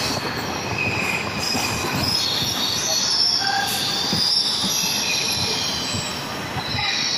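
Electric multiple unit (EMU) suburban train running along a station platform, with a high-pitched squeal from its wheels over the steady rumble of the running gear.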